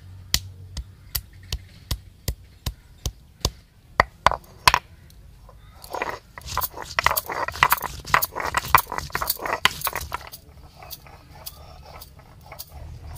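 Stone roller of a sil-batta grinding stone knocked upright onto the slab again and again, sharp stone-on-stone knocks about two or three a second, crushing pieces of turmeric. After about six seconds the roller is rubbed back and forth across the slab, a dense gritty scraping of stone on stone as the turmeric is ground to paste, softer near the end.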